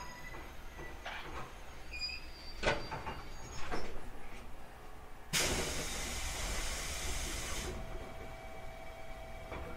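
A JR Kyushu 811 series electric train stands at a station. A couple of sharp knocks come first. About halfway through, compressed air starts hissing suddenly from the train's pneumatic system, runs for about two seconds and then cuts off, leaving a faint steady hum.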